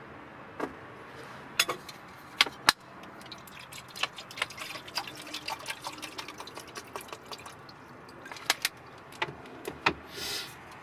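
Camp cooking and coffee gear being handled: sharp clinks and knocks, then a dense run of small rattling ticks, with a short hissing pour near the end.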